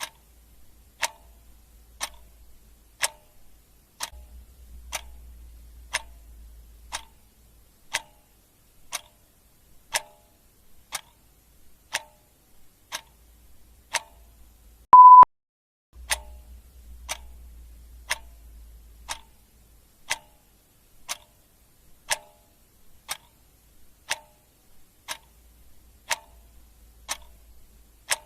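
Clock ticking steadily, about one tick a second. About halfway through, one short, loud, high beep cuts in, the loudest sound here.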